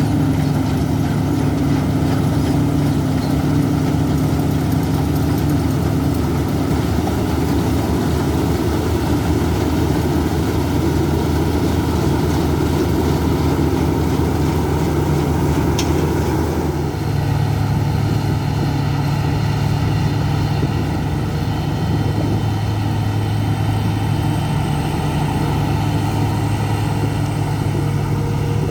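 Large diesel farm machinery running steadily, a deep even engine hum. About two-thirds of the way through, the engine note shifts to a different pitch pattern.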